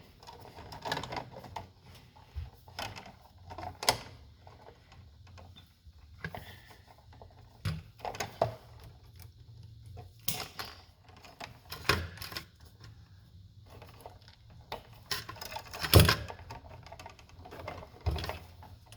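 Irregular clicks, taps and knocks of light switches and small parts being handled, one sharper knock a few seconds before the end.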